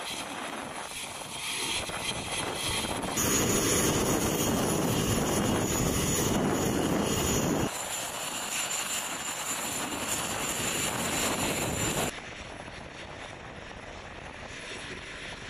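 Steady rushing noise of aircraft engines on a flight line, with a thin high whine over it. It steps up abruptly about three seconds in, drops back about eight seconds in, and falls again about twelve seconds in.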